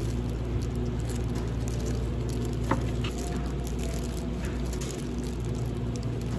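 Disposable plastic gloves rustling and crinkling as hands lay sliced cheese and ham onto a croissant sandwich, with a short tick about two and a half seconds in. A steady low hum runs underneath.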